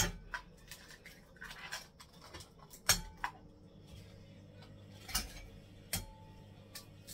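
Eggs being cracked against the rim of a glass mixing bowl: a few sharp taps of shell on glass, spread over several seconds, with faint handling of the shells between them.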